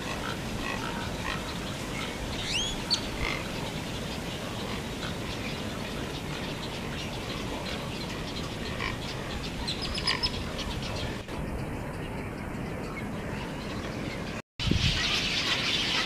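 Marsh chorus of frogs calling, with a few short bird chirps over it. Near the end the sound drops out briefly and a denser high-pitched chatter of the nesting bird colony follows.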